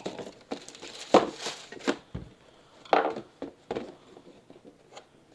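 Handling noise as a pair of sneakers and a cardboard shoebox with tissue paper are moved about on a wooden table: a series of short knocks and rustles, the loudest about a second in and again about three seconds in.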